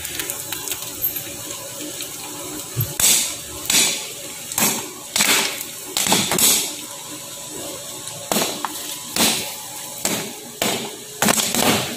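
Corn kernels popping inside a foil-lidded instant popcorn pan on a gas burner, over a steady hiss. The pops begin about three seconds in, then come irregularly about once a second, a dozen or so in all.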